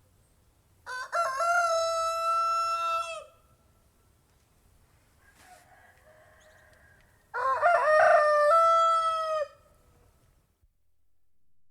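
Domestic rooster crowing twice, about six seconds apart, each crow about two and a half seconds long with a broken start and a long held note at the end.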